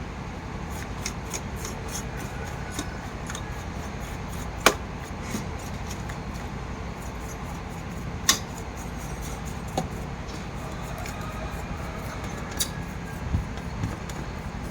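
Scattered light clicks and taps, two of them sharper, over a steady low hum.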